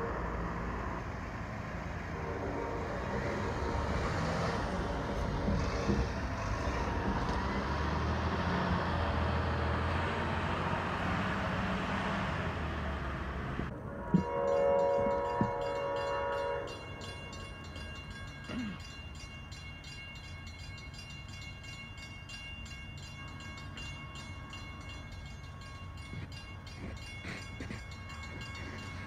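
Train horn sounding one long chord-like blast of several tones for about three seconds, about halfway through, from a locomotive not yet in sight. Before it there is a steady low rumble; afterwards it is much quieter.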